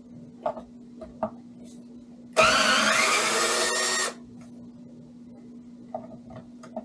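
Cordless drill-driver spinning up and running for under two seconds, unscrewing a bolt, with a few light clicks of tools and parts being handled before and after.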